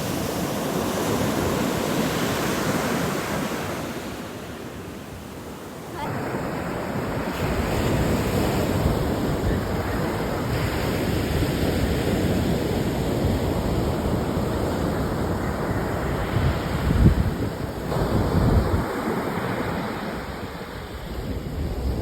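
Ocean surf washing on the beach, with wind buffeting the microphone. The sound changes abruptly about six seconds in, and two hard wind gusts hit the microphone near the end.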